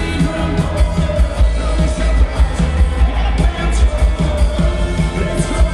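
Rock band playing live, with electric guitars and drums over a steady beat, heard from within an arena crowd with a heavy, boomy bass.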